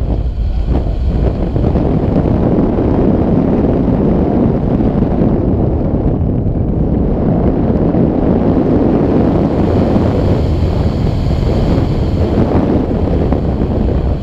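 Airflow rushing steadily and loudly over the microphone of an action camera mounted on a hang glider in flight: dense wind rumble and buffeting.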